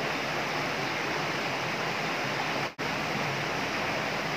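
Steady rush of flowing water tumbling through a concrete channel, with a brief dropout a little past halfway through.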